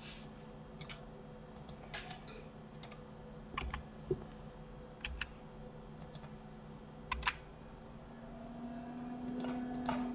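Computer keyboard keys and mouse buttons clicked at irregular moments, a dozen or so short clicks, some in quick pairs. A low hum swells near the end.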